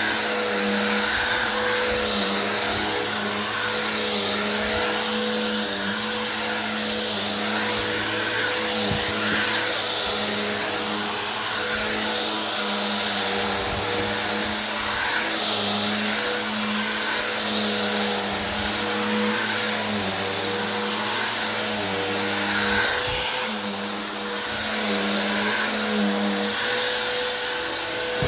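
Bissell vacuum cleaner running steadily, its motor drone wavering slightly in pitch as it is worked across the floor.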